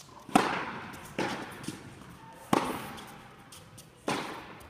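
Tennis ball hit by racquets and bouncing on an indoor court: a serve and the rally after it, four sharp pops, the first the loudest, each trailing off in the echo of the large hall.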